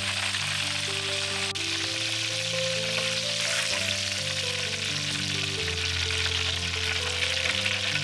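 Fish balls deep-frying in a wok of hot oil, a dense, steady sizzle, with soft background music of slow held notes beneath it. A single sharp click about a second and a half in.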